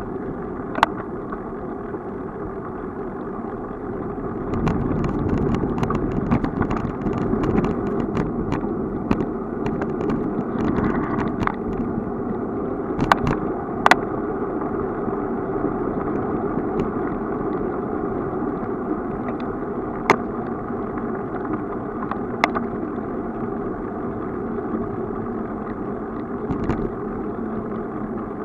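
Steady rumble of a bicycle rolling over asphalt, heard through a camera mounted on the bike, with a few seconds of rattling early on and several single sharp knocks as the bike goes over bumps in the road.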